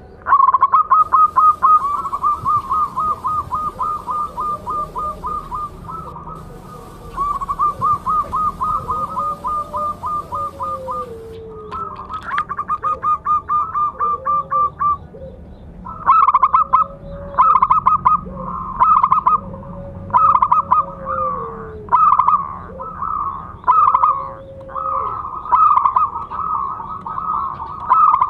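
Zebra doves (perkutut) calling: fast runs of short repeated cooing notes, with slower, lower gliding coos over them, the calls coming in bursts with short breaks.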